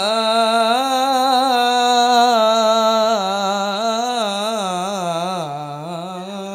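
A man's voice through a handheld microphone chanting one long, drawn-out melismatic phrase, the pitch wavering and turning throughout and sinking lower in the second half.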